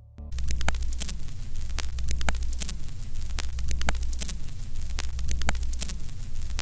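Loud electrical hum and static with scattered crackling clicks, starting suddenly and cutting off abruptly at the end: noise on the audio line, not music or speech.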